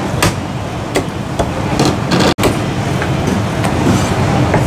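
Cleaver chopping a soy sauce chicken on a thick wooden chopping block: a few sharp, widely spaced knocks over a steady low background rumble.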